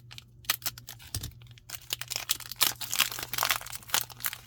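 Crinkling and tearing of a trading-card booster pack wrapper being opened by hand, a quick run of crackles that grows busier in the second half, over a faint low hum.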